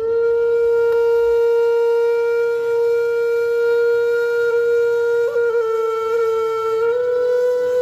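A wind instrument holding one long note as background music, with a brief waver about five seconds in and a small step up in pitch near the end.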